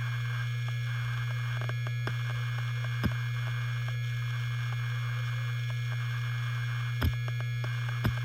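Helium-filled hard disk drive spinning with a steady low hum and a few constant higher whines. Sharp seek clicks from the head actuator come about 3 seconds in, about 7 seconds in and again near the end.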